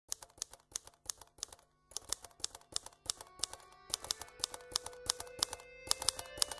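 Fast, even typewriter-like clicking, several strikes a second, with a short break just before two seconds in. Soft music with held notes fades in underneath from about four seconds.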